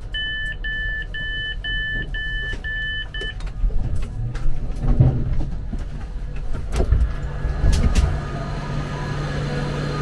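Passenger train door warning beeper sounding a quick run of about eight two-tone beeps as the door is released, then clunks and knocks with a steady low hum as the door opens onto the platform.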